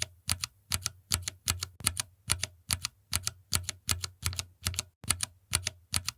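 Cherry MX Brown mechanical keyboard switches pressed over and over in an even rhythm, about three strokes a second: the tactile, non-clicky thock of the keys bottoming out, with no click.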